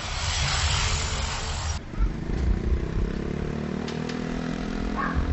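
Street traffic noise, then about two seconds in an abrupt change to a vehicle engine running, its pitch slowly rising as it picks up speed.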